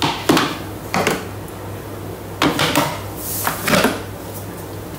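Clunks and knocks of Thermomix parts being handled: the plastic simmering basket set down on the bench and the stainless steel mixing bowl lifted off its base. The knocks come in two clusters, one in the first second and another from about two and a half to four seconds in, over a steady low hum.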